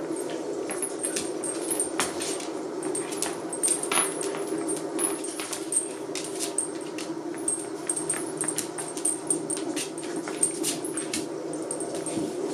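A Shiba Inu and a bull mastiff play-fighting over a rope toy: steady dog vocalising runs through, with frequent short clinks from the metal chain collars.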